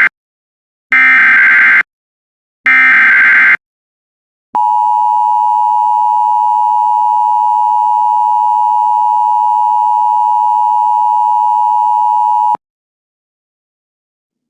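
Emergency Alert System SAME header: three one-second bursts of warbling digital data tones (the first already under way), then after a short pause the EAS attention signal, a steady two-tone beep of 853 and 960 Hz held for about eight seconds that cuts off suddenly.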